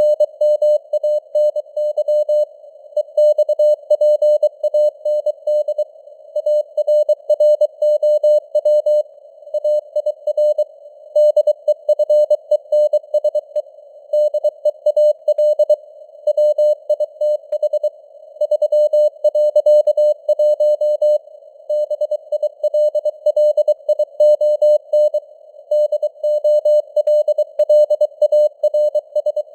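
Morse code sent at 23 words per minute: a single steady-pitched CW tone keyed in quick dots and dashes with short gaps between words, in a narrow band of simulated radio static.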